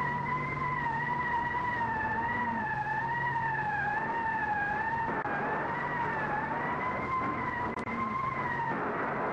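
A siren holding a high note whose pitch wavers slowly, dipping a little and rising back. It sits over a steady low hum and hiss.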